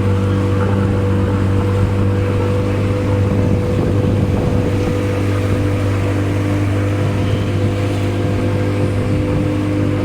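Tour boat's motor running steadily, a constant low hum with no change in speed.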